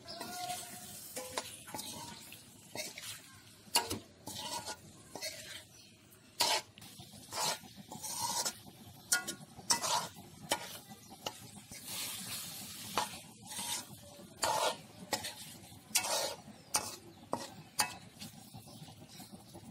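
Steel spoon stirring and scraping potatoes and chopped tomatoes around a metal karai, in irregular strokes, while the oily masala sizzles underneath.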